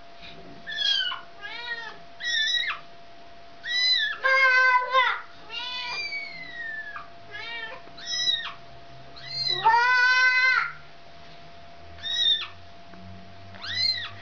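A mother cat and her kitten meowing over and over, about ten calls in all: short high mews and gliding cries, with two long, loud meows about four and ten seconds in.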